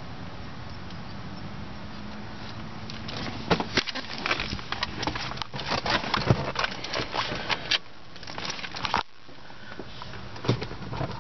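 Rustling, knocking and clicking of someone getting into the driver's seat of an idling 2009 Ford Escape XLT while holding the camera. The rustling and knocking dominate from about three seconds in and stop abruptly about nine seconds in, with a few more knocks near the end. The engine's steady low idle hum sits underneath, plainest before the handling noise starts.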